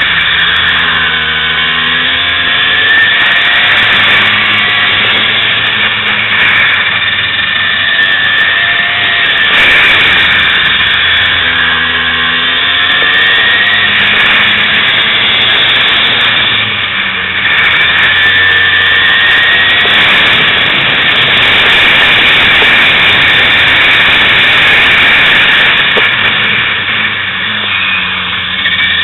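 Kart engine heard close up from on board, running hard through a lap: its pitch drops and climbs again several times as it slows into corners and accelerates out.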